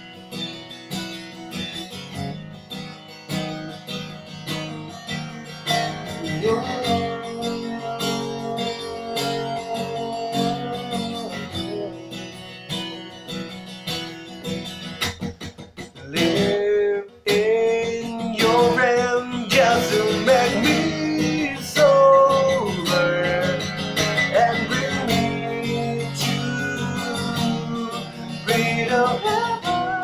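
Acoustic guitar strummed with a man singing along, the voice coming in about six seconds in. The playing breaks off for a moment near the middle, then the singing returns louder.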